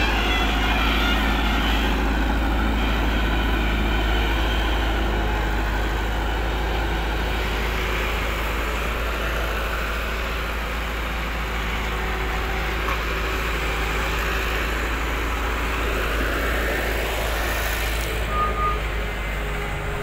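Diesel engines of a Bobcat skid-steer loader and nearby trucks running steadily: a continuous mechanical din with a deep rumble underneath.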